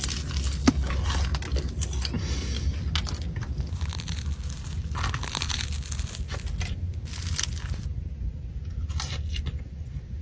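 Flaky croissant being torn and bitten, its crisp pastry layers crackling and crunching in a dense run of short crackles, over a low steady hum.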